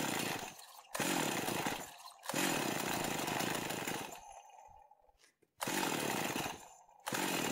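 Stihl MS260 two-stroke chainsaw engine being pull-started several times on a freshly replaced cylinder and piston. The engine catches and runs for a second or two each time, then dies before the next pull: it now starts readily.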